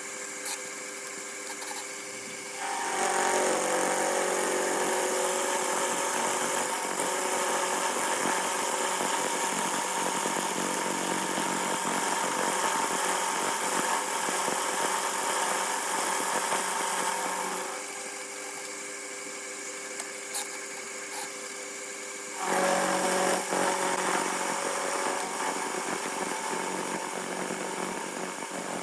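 A TV-16 lathe running with a milling attachment: a steady machine hum that grows much louder and harsher twice, as the cutter works the metal for about fifteen seconds, drops back to the running hum, then cuts again.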